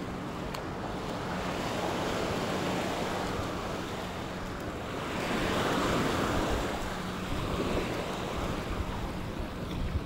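Small waves washing up on a sandy shore, the wash swelling louder twice, around two seconds in and again around the middle, with wind rumbling on the microphone.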